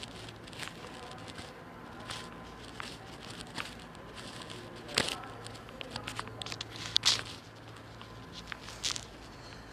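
Footsteps on a bare concrete floor, irregular clicks and scuffs, with two sharper knocks about five and seven seconds in.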